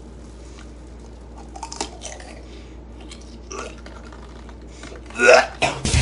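A person eating a raw egg: faint scattered mouth and handling noises, then a short vocal noise from the throat about five seconds in.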